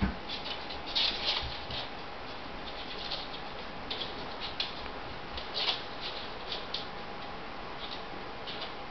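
Dogs shifting about in and beside a whelping box: irregular faint scratches and clicks from paws and claws, with a low thump right at the start and a faint steady hum underneath.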